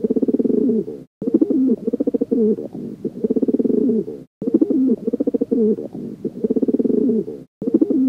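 Feral rock pigeons cooing: low, throaty, warbling coos repeated over and over, with short silent breaks about every three seconds.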